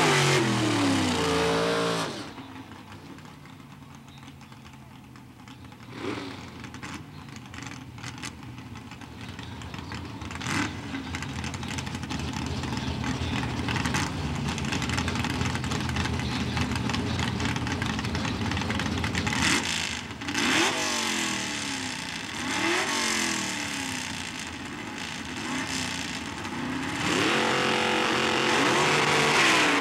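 Super Stock Chevy II Nova drag car's V8 engine. It comes off a smoky burnout with the revs falling away about two seconds in, then runs at idle and lower revs while staging, with several rev blips rising and falling later on, and is loud again near the end as the car leaves the line.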